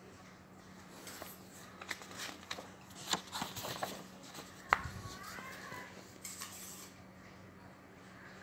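Notebook paper being handled as pages are turned and pressed flat: crisp crackles and taps, with one sharp knock just under five seconds in and a brief rustle a little later.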